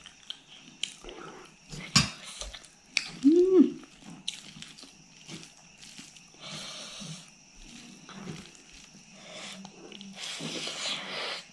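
Close-up eating sounds: a hand squishing rice into fish curry, a sharp spoon click about two seconds in, then chewing and wet mouth sounds, loudest near the end. A short rising-and-falling whine sounds once, about three seconds in.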